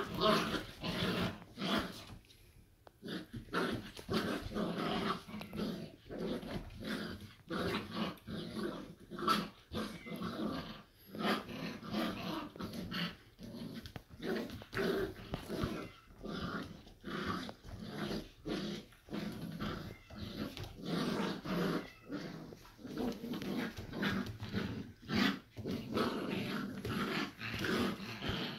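Two puppies growling while playing tug-of-war with a rope toy, a rough stream of short growls with hardly a pause, dipping briefly about two to three seconds in.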